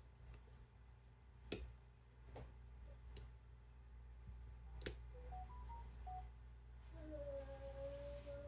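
Sharp, spaced clicks from a pick working the pins of a lock, loudest about five seconds in. From about seven seconds a voice hums a steady, wavering note alongside.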